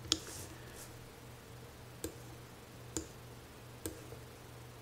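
Computer keyboard arrow keys pressed one at a time to step through print layers: four single clicks about a second apart, over a faint low hum.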